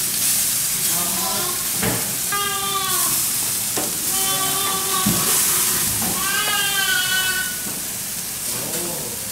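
Black grouper sizzling on a hot grill, a steady hiss. A pitched, voice-like sound comes and goes about five times over it, without clear words.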